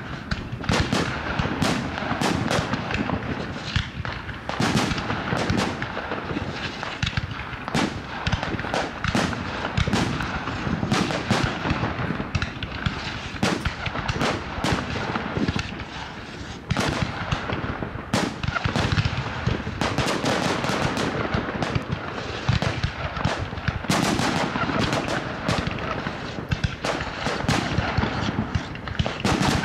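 Aerial fireworks display: shells launching and bursting in a dense, irregular run of bangs, several a second, with crackling between them.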